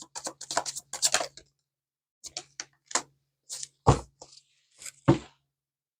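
Tarot cards being shuffled and handled: a quick run of light card clicks, then a few scattered flicks and two sharper taps about four and five seconds in.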